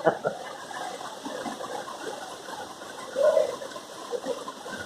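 Water running and splashing at a waterfall, with a brief louder burst about three seconds in.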